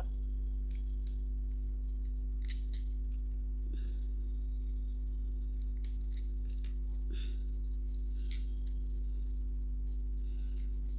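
Steady low electrical hum, with scattered light clicks and taps as glass marbles are handled and pushed into a rubber balloon.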